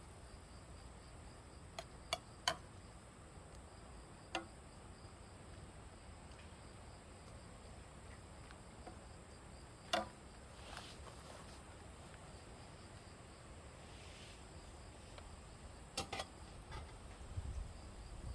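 Insects trill steadily in the background, one high steady tone with a fainter pulsing chirp under it. A few sharp clicks or snaps break in here and there, the loudest a few seconds in and about halfway.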